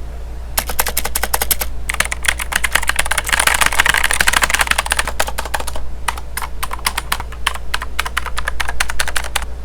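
Typing on a Gigaware K30 mechanical keyboard with blue switches: rapid clicky keystrokes, with a dense flurry in the middle, a brief pause about six seconds in, then more keystrokes.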